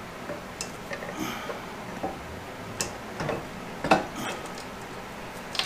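Scattered light metallic clicks and knocks as a flywheel is worked by hand onto the crankshaft of a Kawasaki 19 hp engine, the sharpest knock about four seconds in.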